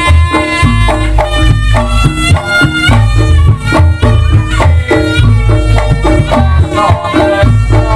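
Loud live Reog gamelan music: a reedy, shawm-like melody line stepping between held notes over heavy, steady hand-drumming.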